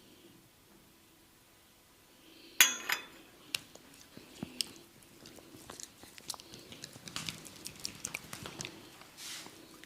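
Hands massaging oiled skin close to the microphone, making irregular wet clicks and soft rubbing sounds. The massage starts with a single sharp snap about two and a half seconds in, after a quiet start.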